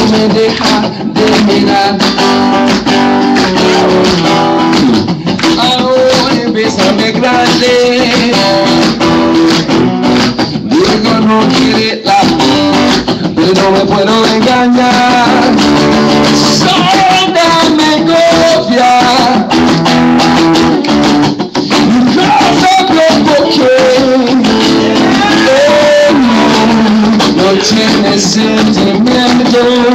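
Guitar played live, strummed and picked in a continuous instrumental passage.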